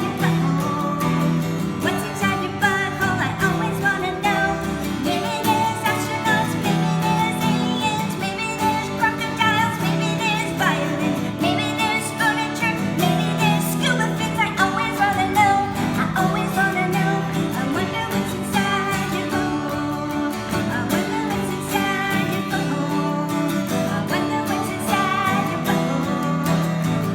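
A woman singing a pop song to acoustic guitar accompaniment.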